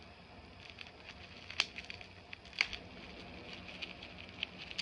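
Plastic packaging crinkling and crackling as a pen is jabbed through it to tear it open, with two sharper clicks about a second apart.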